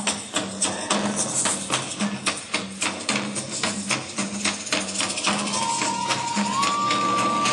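Hula dance music with fast, sharp clacking percussion several times a second over a steady low drum beat. About five and a half seconds in, a long high note enters and steps up in pitch near the end.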